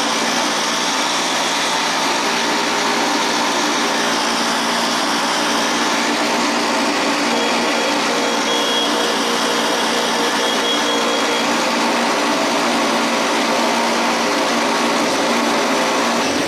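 Small gasoline engine of a Chinese gas scooter running steadily at idle, then cutting off abruptly near the end.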